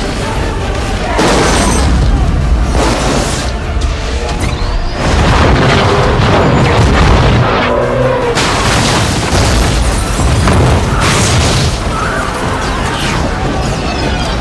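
Film soundtrack of large-scale destruction: heavy booms and crashing debris under dramatic music, with big loud hits about one, three, five and eleven seconds in.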